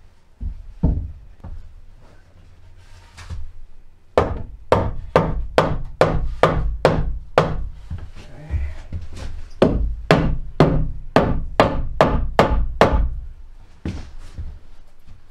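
Hammer striking a wooden 2x4 stud being fitted into the wall framing. A few scattered knocks come first, then from about four seconds in a fast steady run of blows, about three a second, with a short break near the middle.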